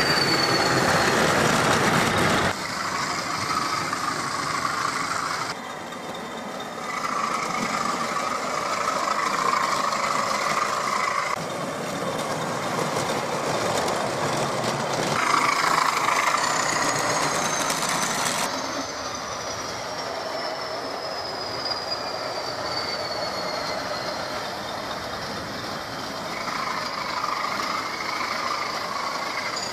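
Model Class 20 diesel locomotive and its coaches running along model railway track: a steady rattling rumble of wheels on the rails. Over it is a thin high whine that slides down in pitch, and the sound changes abruptly several times.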